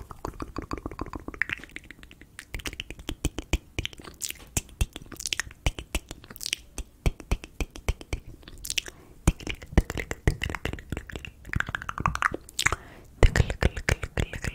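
Close-miked ASMR mouth sounds: a dense run of quick wet clicks and pops from the lips and tongue, with a few short breathy hisses.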